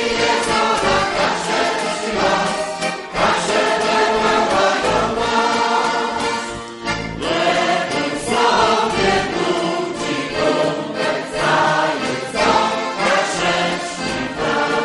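Kashubian women's folk choir singing together under a conductor.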